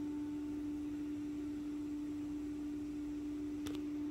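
Z-axis stepper motor of a Phrozen Sonic Mini 4K resin printer humming with a steady single pitch as it turns the lead screw to raise the build platform. The motor is the upgrade kit's stronger stepper, fitted with a vibration damper to soften its hum. A short click near the end.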